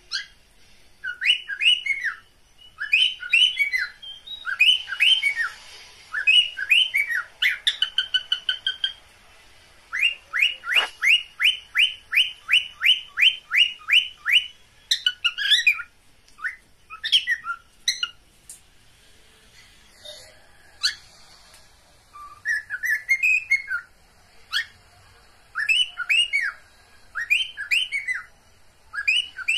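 Cockatiels calling: repeated rising-and-falling whistled chirps, with a fast run of short notes, about four a second, around the middle. The uploader calls these mating calls.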